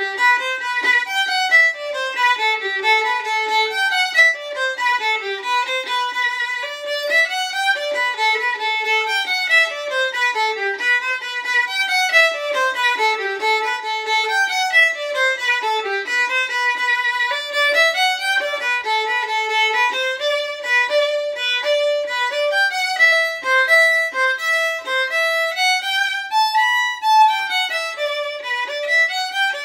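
Solo violin playing a traditional Irish jig, an unbroken run of quick bowed notes.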